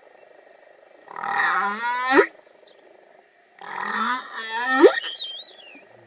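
Humpback whale song: two calls, each a cluster of pitched moans that ends in a quick rising whoop. A thin, wavering high squeal follows the second call. Both sound repetitive and vary widely in pitch.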